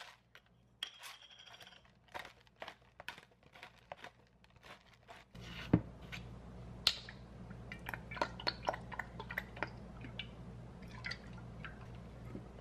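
Chopped lettuce being tossed with a wooden fork in a ceramic bowl: crisp leafy crunches and rustles with light clicks of wood against the bowl. Scattered light ticks come first, and a steady low hum comes in about five seconds in.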